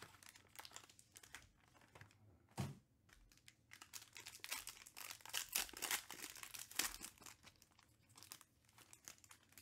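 Foil wrapper of a 2021 Topps Tier One trading card pack crinkling and tearing as it is ripped open by hand. Scattered crackles grow dense about four seconds in, with one soft thump a little before that.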